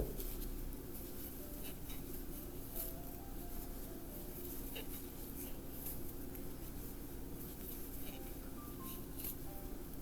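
Soft scratching and rustling of a crochet hook working yarn around a charging cable, over a steady low hum.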